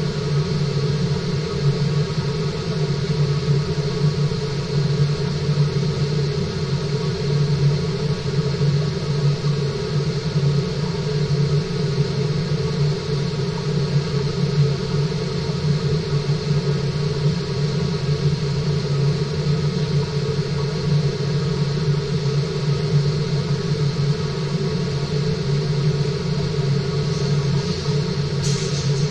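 Steady hum of a fish tank's water circulation and pumps: an even rushing noise with several held low tones.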